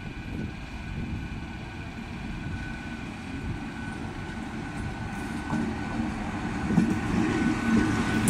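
MÁV class V43 (431) electric locomotive and its passenger coaches rolling slowly past on the rails: a steady low rumble of wheels with a faint steady whine, growing louder near the end as the locomotive comes close.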